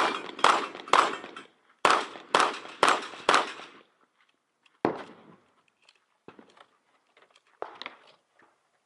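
Gunfire in a 3-gun match: a quick string of shots about half a second apart, three at the start and then four more after a short pause, one more shot about five seconds in, and fainter pops near the end.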